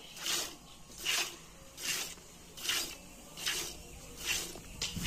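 Cow being milked by hand: streams of milk squirting into a bucket, a hissing spurt about every three-quarters of a second in a steady rhythm, with a short tap near the end.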